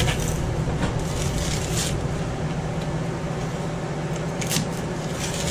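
Steady low hum of running machinery, with a few faint brief clicks over it.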